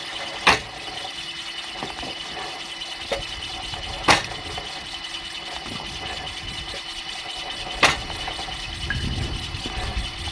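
Homemade mechanical firewood splitter running steadily, its blade cracking through a piece of wood three times, about every three and a half seconds.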